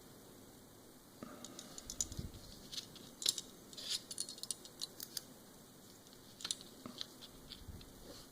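Scattered small clicks and light taps from a compact digital camera's parts and a small tool being handled during disassembly. They come thickest from about a second in to near the end.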